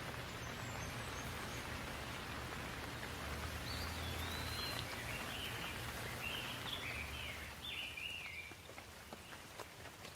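Steady rain falling, with a songbird singing a string of short warbled phrases from about three and a half seconds in until about eight seconds. The rain thins a little near the end, leaving a few separate drops ticking.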